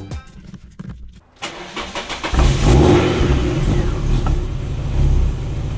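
Volkswagen Golf Mk3's engine cranked and started, catching about two seconds in with a brief rise in revs, then settling into a steady idle. This is its first start after a new fuel filter was fitted.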